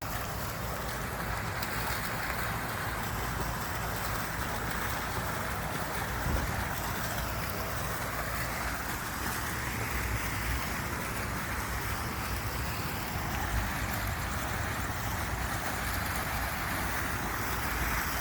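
Steady white noise: an even rushing hiss, strongest in the middle range, with a low rumble underneath.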